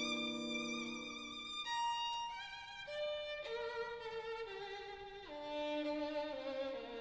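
Violin playing a slow melody of long held notes with vibrato, the note changing about once a second, over lower sustained notes.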